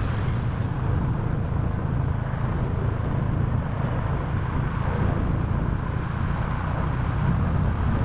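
Motorcycle running steadily at road speed: a low engine rumble under rushing wind noise, with highway traffic alongside.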